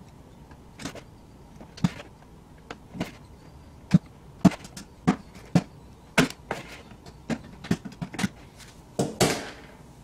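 A pen tip scratching and pressing on the thin plastic bottom of an upturned tub. It makes an irregular string of sharp clicks and scratches as the plastic flexes under the hand, the loudest about four seconds in, and a longer scrape near the end.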